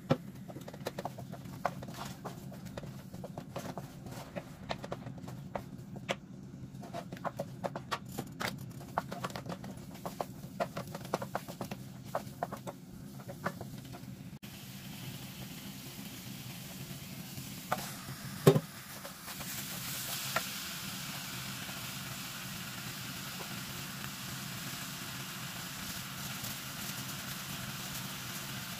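Wooden spoon stirring and scraping thick spice paste in a stainless steel pan, with many light clicks against the metal. About two-thirds of the way through comes a loud knock, then steady sizzling as beef chunks fry in the paste.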